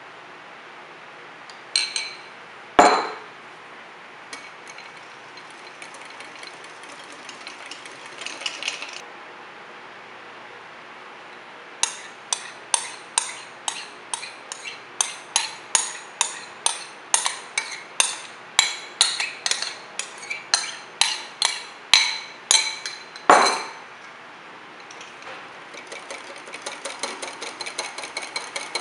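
Wire whisk clinking against a glass bowl as whipped cream and white chocolate ganache are mixed, a ringing strike about twice a second, then quicker, lighter whisking near the end. Two sharper clinks of spoon and bowl come about two seconds in.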